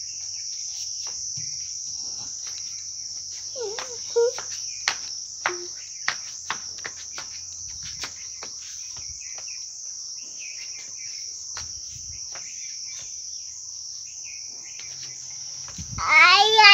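Steady, high-pitched insect chorus running without a break. Near the end a small child lets out a loud voiced cry, the loudest sound; there are brief child sounds and light taps earlier.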